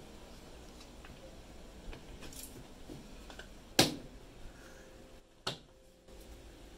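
One-handed quick-release bar clamps being tightened onto wooden blocks: small clicks and knocks from the clamp triggers and jaws, with one sharp loud knock about four seconds in and a smaller one about a second and a half later.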